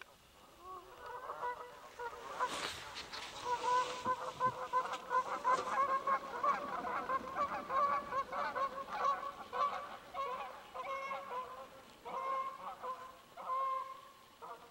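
A flock of Canada geese honking, many calls overlapping at first and thinning to separate honks near the end, with a brief rush of noise a few seconds in.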